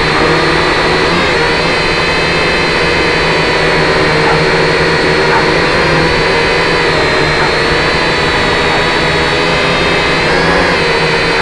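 Small remote-controlled drone's electric motors and propellers, heard up close from its own onboard camera: a loud, steady whine with several high tones that waver slightly as it flies.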